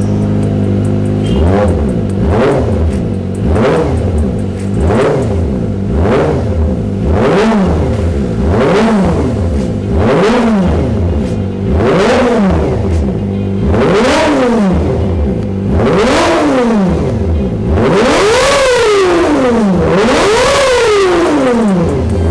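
Kawasaki ZX-25R's inline-four revved through an Austin Racing GP1RR titanium exhaust. It idles briefly, then gets a string of quick throttle blips about once a second, and near the end longer, higher revs about every two seconds. The exhaust note is sharp, loud and dry.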